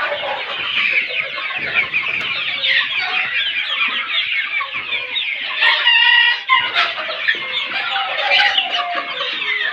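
A large flock of young desi chickens clucking and chattering continuously. A young cockerel crows once, briefly, about six seconds in.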